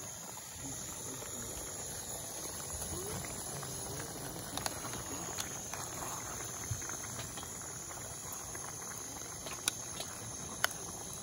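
Chicken, potatoes and tomato sauce simmering in a pan over a gas burner with a steady hiss, and a metal spoon clicking against the pan a few times, sharpest near the end.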